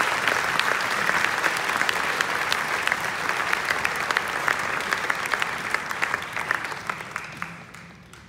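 Audience applauding, a dense patter of many hands clapping that thins out and dies away over the last two seconds.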